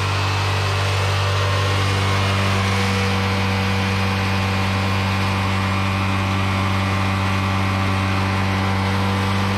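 Yard Machines riding mower's 17.5 hp twin-cylinder engine running at a steady, unchanging speed, heard up close.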